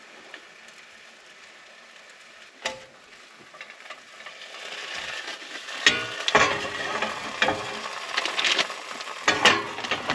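Slices of Canadian bacon sizzling in a hot nonstick frying pan beside scrambled eggs and cheese. The sizzle builds about halfway through. Several sharp knocks and scrapes come as the pan is shifted by its handle on the gas stove's grate.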